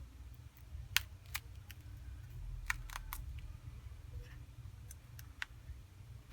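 Small, sharp, irregular clicks and taps of pry tools against a Samsung Galaxy S7's glass back and frame as the glass is worked loose, about seven in all, the loudest about a second in, over a faint steady hum.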